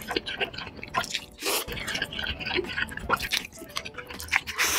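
Close-miked wet slurping of jjajangmyeon (black bean sauce noodles): many small smacks and sucking clicks, with a longer slurp about one and a half seconds in and another near the end.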